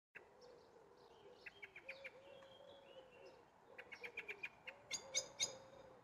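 Common blackbird giving runs of sharp, rapid chinking alarm calls, loudest near the end, the agitated alarm of a bird unhappy with a person sitting close by. A low cooing call repeats underneath.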